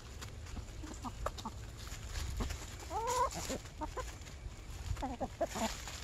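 A small flock of backyard hens (Wyandottes and Brahmas) clucking softly as they forage, with short calls scattered throughout, a longer rising call about three seconds in and a cluster of clucks near the end. Dry leaves crackle under their scratching feet.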